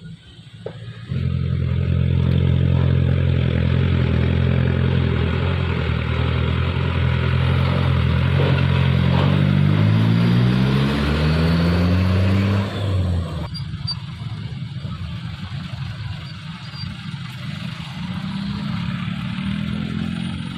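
Diesel truck engine running loud at steady revs, then revving higher for several seconds before the sound drops off suddenly about 13 seconds in, leaving a lower engine rumble.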